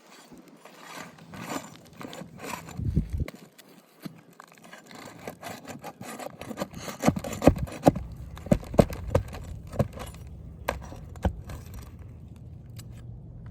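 Gritty scraping and rubbing on asphalt roof shingles, with a run of sharp clicks and knocks between about six and ten seconds in.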